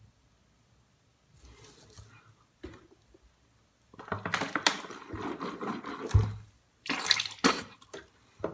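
A mouth being rinsed with water: a drink from a plastic water bottle, then water swished and sputtered in the mouth in irregular bursts from about four seconds in, with a sharper burst near the end.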